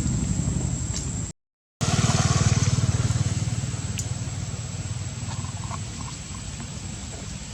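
A small engine running with a steady low rumble. It cuts to silence for half a second just over a second in, then comes back louder and slowly fades.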